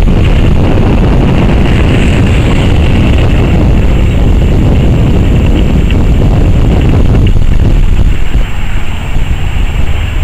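Jet airliner engines on taxiing aircraft, a loud steady rumble and hiss, mixed with heavy wind rumble on the microphone. The level dips and turns uneven near the end.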